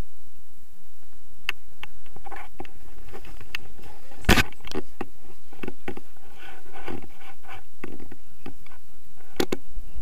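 Wind buffeting an action camera's microphone as a tandem paraglider comes in to land, a steady low rumble. Over it come scattered clicks and rattles from the harness and camera mount, with one sharp knock about four seconds in.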